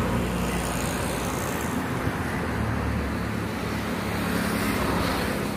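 Road traffic on the barrage roadway: a steady low rumble of passing motor vehicles.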